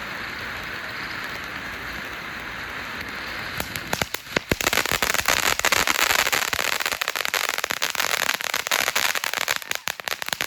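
TNT Bottle of Sparks firework fountain burning: a steady spraying hiss, then about three and a half seconds in it breaks into dense, rapid crackling that continues.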